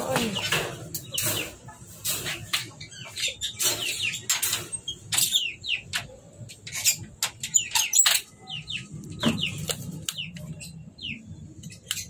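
Pet lovebirds chirping in many quick, short, high calls, with scattered clicks among them.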